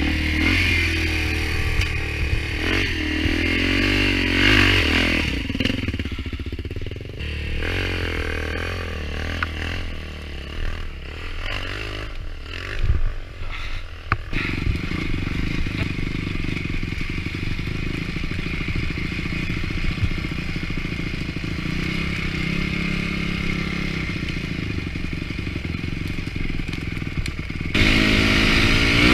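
Four-stroke dirt bike engines running and revving unevenly as a bike is worked over rough forest ground, with clattering and scraping. About halfway through the engine settles into steadier riding with a slow rise and fall in pitch, and near the end it cuts abruptly to a louder engine.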